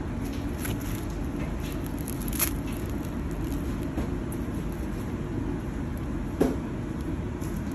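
A steady low rumble, with a few sharp crackles and clicks as a crisp, breadcrumb-coated fried samboosa is picked up and torn apart by hand. The loudest crackle comes about two and a half seconds in, and another about six and a half seconds in.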